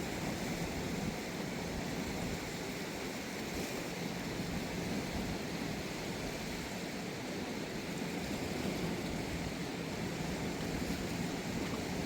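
A swollen, flooded river rushing steadily.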